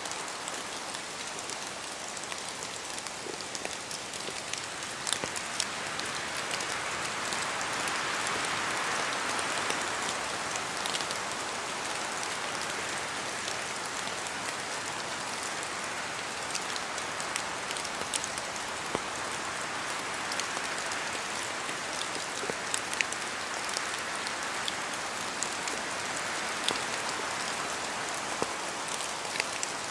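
Steady rain falling in a forest, dripping from the trees, with many scattered individual drops tapping sharply. The rush swells with gusts of wind about eight seconds in and again near the end.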